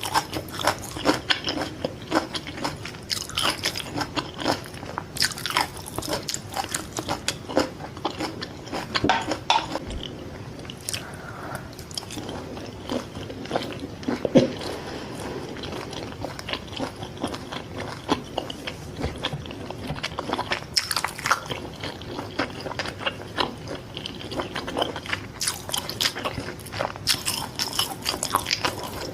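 Close-miked eating of fried fish balls: crisp bites and wet chewing with a steady patter of small crunches and clicks. The sounds come thickest at the start and near the end, with a sparser, softer stretch in the middle.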